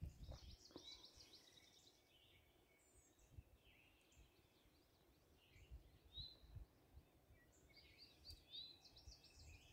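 Faint songbirds singing: a rapid run of high chirps near the start and another near the end, with scattered single calls between. A few faint low thumps sit under the song.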